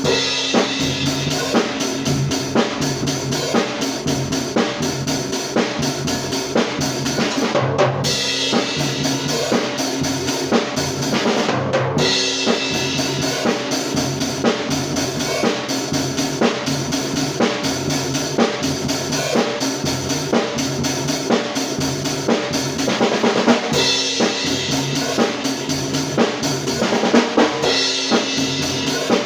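Isolated drum-kit track of a pop-rock song: kick and snare play a steady beat. Cymbals grow brighter in a few stretches.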